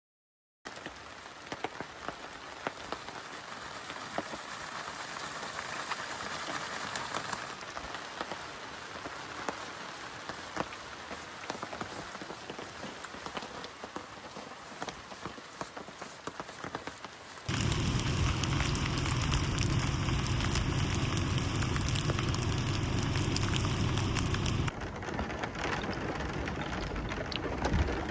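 Rain falling, with many small drops pattering on a surface. About seventeen seconds in it cuts to louder, heavier rain with a deep rumble under it, which drops back somewhat near the end.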